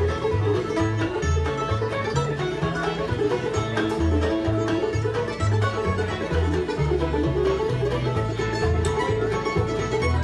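Old-time string band playing a Kentucky fiddle tune live: fiddle carrying the melody over banjo, guitar and mandolin, with an upright bass fiddle stepping through steady low notes.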